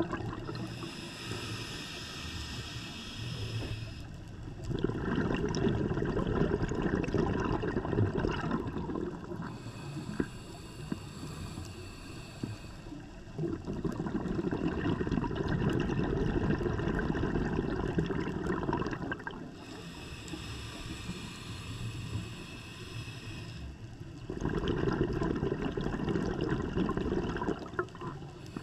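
Scuba diver breathing through a regulator underwater: a hissing inhale of about three and a half seconds, then a longer gush of exhaled bubbles, repeating three times at an even pace.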